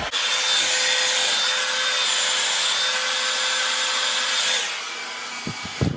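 Handheld hair dryer blowing on low, cool setting to dry the hold spray. A steady rush of air with a motor whine, getting quieter about four and a half seconds in, with a couple of knocks near the end.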